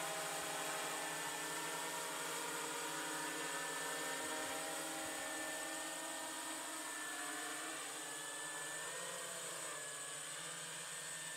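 Eye-Droid 6 multirotor drone's motors and propellers buzzing steadily as it descends on reduced throttle. The sound fades slightly, and a high tone drifts in pitch as it settles toward the ground.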